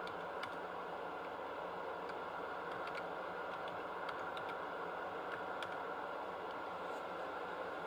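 A dozen or so light, scattered clicks at irregular spacing over a steady background hiss.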